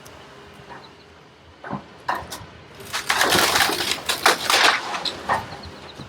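A house being crushed by an excavator: two sharp cracks about two seconds in, then a loud burst of crashing and breaking debris lasting a couple of seconds.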